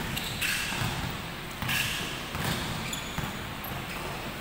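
A basketball being dribbled on an indoor wooden court, a series of bounces, amid the shuffling of players' shoes in a large gym hall.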